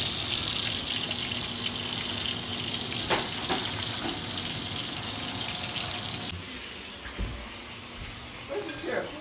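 Sausage links sizzling in oil in a frying pan, a steady hiss that drops away about six seconds in, with a couple of faint clicks partway through.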